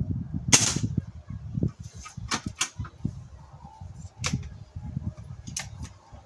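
BSA Lightning SE gas-ram break-barrel air rifle firing once, a sharp crack about half a second in, followed by several sharp metallic clicks as the barrel is broken open to cock it and load the next pellet.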